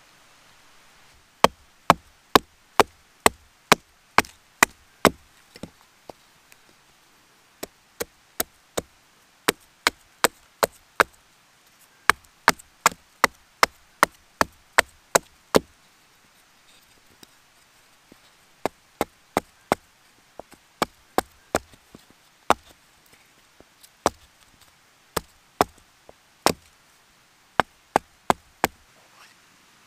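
Repeated sharp wooden knocks, about two a second in runs with short pauses: a wooden baton striking a knife driven into a small wooden block to cut and shape an ocarina blank.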